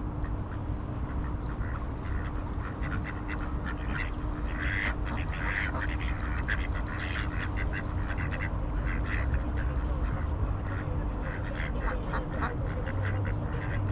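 Ducks quacking and chattering in a run of short calls all through, over a steady low rumble.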